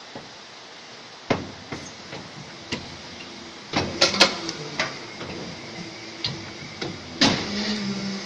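Injection moulding machine cycling a lamp-lens mould: a series of metallic clunks and clacks as the mould opens and closes again, loudest in a cluster about four seconds in and once more just after seven seconds. A low steady hum comes in near the end.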